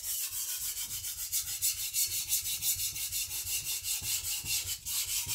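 Steel cleaver blade scraping back and forth across a sharpening stone in quick, even strokes, about three a second. This is a micro bevel being put on the edge.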